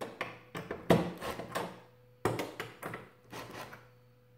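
Hand screwdriver and metal mount brackets knocking and rubbing against the plastic back of a flat-screen TV as the bracket screws are tightened: a few separate knocks and scrapes, the loudest about a second in.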